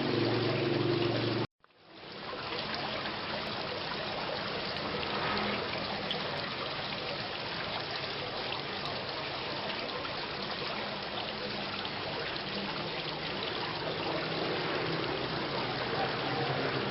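Steady rain falling. The sound cuts out for a moment about a second and a half in, then fades back in.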